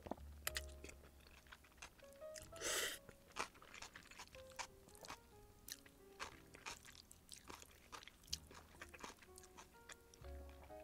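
Close-miked chewing with many small crisp crunches, typical of biting into crispy fried sweet-and-sour pork (tangsuyuk), with one louder, longer rush of noise about three seconds in. Quiet background music plays underneath.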